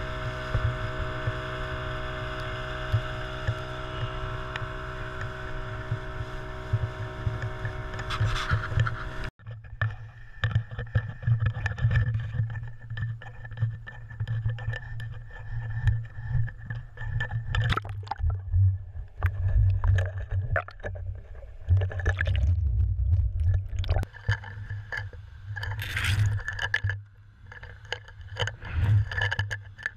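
Outboard motor running steadily at speed, with wind and water rushing past, cut off suddenly about nine seconds in. After that, irregular knocks, scrapes and water sounds from the jigger and camera being handled over the side of the boat and lowered into the sea.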